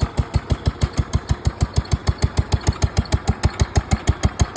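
Wheel Horse 1257 lawn tractor's engine idling with a steady, even beat of about ten pulses a second.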